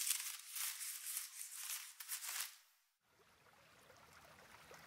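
Leaves and brush rustling unevenly with small crackles for nearly three seconds, then stopping. About three seconds in, a faint flowing stream begins and slowly grows.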